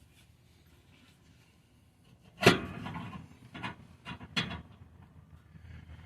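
Tools and exhaust parts knocking during exhaust work under a car: quiet at first, then a sharp knock followed by a short clattering scrape, a few lighter knocks, and a second sharp knock.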